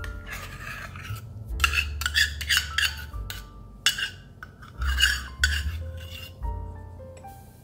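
A metal measuring cup being scraped and tapped to empty thick dressing (Greek yogurt) into a ceramic bowl: two clusters of quick scraping and clinking strokes, about two seconds in and again about five seconds in. Soft background music plays throughout.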